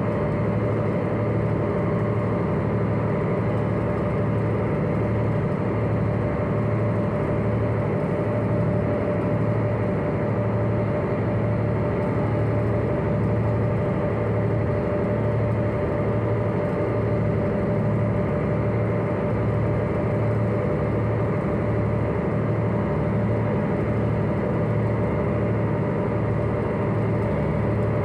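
Engine and machinery drone of the Hakone pirate sightseeing ship Victory, heard on board while it cruises: a steady hum with a low, pulsing note and higher steady whines.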